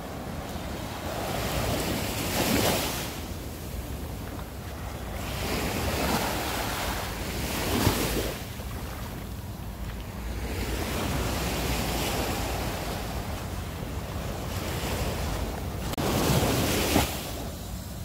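Small sea waves breaking and washing up a sandy beach, swelling and fading three times, with a steady rumble of wind on the microphone underneath.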